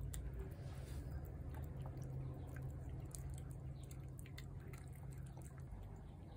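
A cat eating shredded chicken from a plate: faint, scattered wet clicks of chewing and licking, over a low steady hum.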